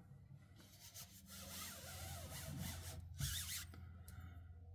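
Faint rubbing and rustling of a thin 10.5 mil photo backdrop sheet being handled and pulled out from the wall, with a brief louder rustle about three seconds in. A low steady hum sounds underneath.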